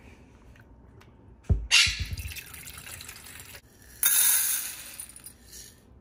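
A thump on the counter, then dry parrot pellets poured from a glass jar into a stainless steel bowl, rattling as they land, in two pours.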